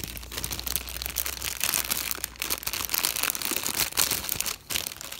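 Clear plastic bag of diamond-painting bead packets crinkling as it is handled and pulled open, a dense run of irregular crackles.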